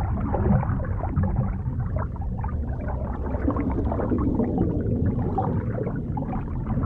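Muffled underwater ambience: a steady low rumble with faint, irregular bubbling and crackling, and no high tones.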